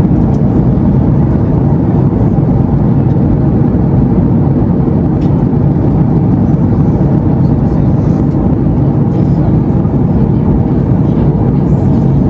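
Steady roar in the cabin of a Boeing 737 MAX 8 airliner: engine and airflow noise, loud and even, with no change in pitch.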